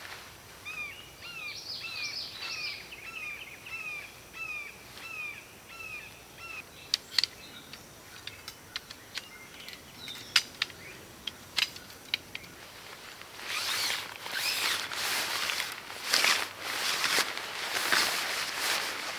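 A songbird calls a quick run of short, repeated down-slurred notes for the first several seconds. Scattered sharp clicks follow, then louder rustling and handling noises near the end.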